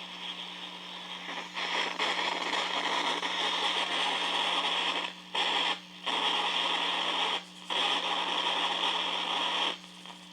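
Static hiss from a small battery-powered radio over a steady low hum. The hiss swells about a second and a half in, then cuts out and comes back in blocks of a couple of seconds, three times. The owner takes the pulsing for incoming RF beams.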